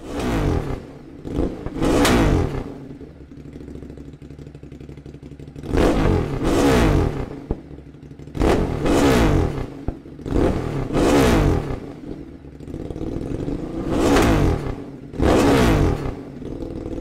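Motorcycle engine free-revved through its exhaust in repeated blips, about eight in all and mostly in pairs, each rising in pitch and falling back to a steady idle in between.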